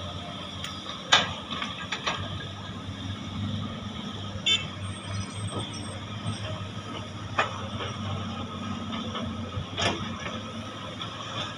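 Diesel engines of several crawler excavators running in a steady drone. Sharp knocks break through it now and then, the loudest about a second in, from the buckets digging and loading nickel ore.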